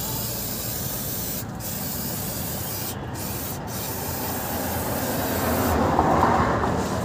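Aerosol cleaner spray can hissing in long bursts, with three brief breaks. Near the end the spraying stops and a louder rushing noise swells and fades.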